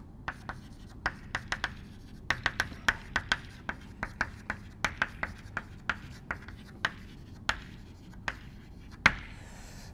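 Chalk writing on a chalkboard: a quick, irregular run of sharp taps and short scratches as letters are written out, with a louder tap about nine seconds in.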